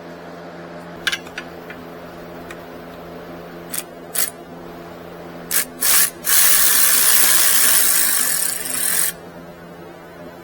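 A few sharp clicks, two short bursts of a handheld power tool, then the tool runs steadily for about three seconds and stops abruptly, as fasteners are worked during a starter-motor replacement.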